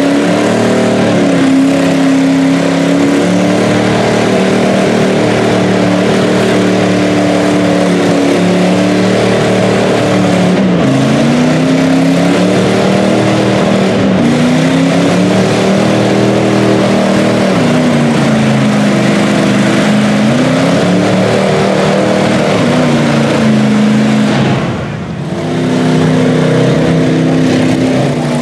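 Lifted Toyota 4Runner mud truck on tractor tires, its engine revving hard through a mud pit, the pitch climbing and falling again and again as the tires throw mud. It lets off briefly a few seconds before the end, then picks back up.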